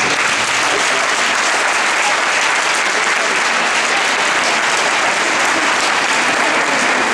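Audience applauding steadily after the music ends.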